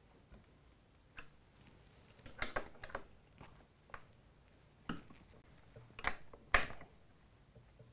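Scattered small metallic clicks and taps of a wrench on nuts and the printer frame as the gantry rod nuts on a 3D printer are tightened by hand.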